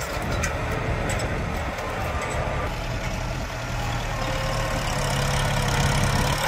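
Farm tractor's diesel engine running steadily, with scattered sharp clicks over the first two seconds or so. The engine grows a little louder in the second half.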